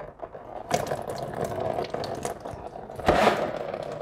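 Engine coolant pouring from the radiator drain and splashing into a plastic drain bucket, starting about a second in, with a louder gush about three seconds in.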